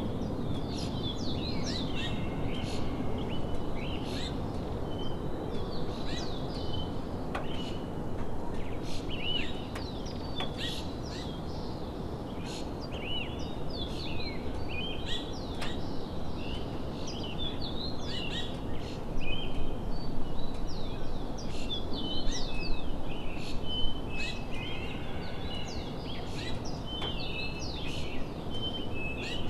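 Several birds chirping and calling in many short, quick notes, over a steady outdoor background hiss.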